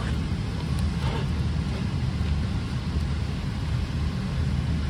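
Steady low hum and air hiss of a Boeing 777-300ER's cabin ventilation while the airliner sits before engine start, with a faint click about a second in.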